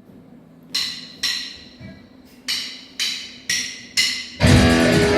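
Count-in of sharp wooden clicks, likely drumsticks struck together: two clicks, a short gap, then four evenly spaced clicks about half a second apart. About four seconds in the band comes in with loud strummed guitars.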